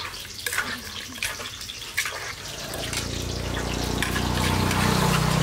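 Wet shredded green papaya salad being tossed and scooped in a wooden mortar: squelchy, liquid mixing sounds with light knocks of a spoon against the mortar. A steady low hum comes in about halfway through and grows louder.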